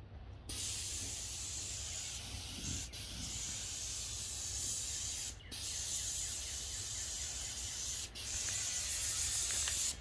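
Graco 395 airless paint sprayer spraying paint through a fine-finish 310 tip: a steady hiss that starts about half a second in and stops for a moment twice, about halfway through and again near the end.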